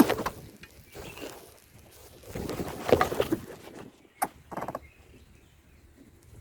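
Leaves and nest material rustling and scuffling in irregular bursts as a greater coucal forces its way into an ashy prinia's nest. The loudest bout comes about three seconds in, with a faint high chirp or two between the bursts.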